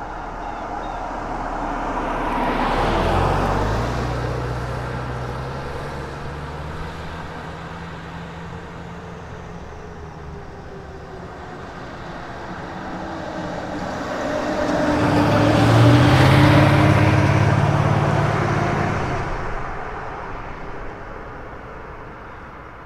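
Two cars driving past one after the other, each building up to a peak and fading away. The first peaks about three seconds in. The second is louder, peaks about two-thirds of the way through, and its engine note falls in pitch as it passes.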